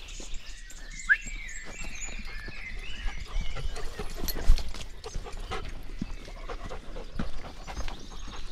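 A dog panting as it walks, with irregular scuffing steps on a dirt trail.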